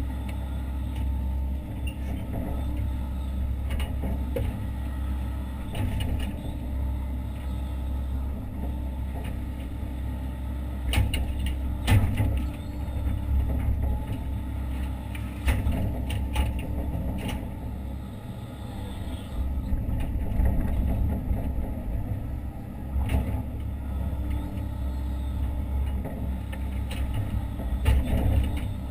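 Hitachi Zaxis 130 excavator's diesel engine and hydraulics running steadily, heard from inside the cab, with several short sharp knocks and clunks from the machine as it works.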